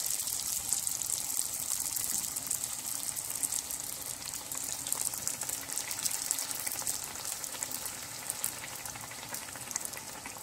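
Sfenj dough frying in hot oil in a pan: a steady sizzle dense with fine crackling pops, easing a little toward the end.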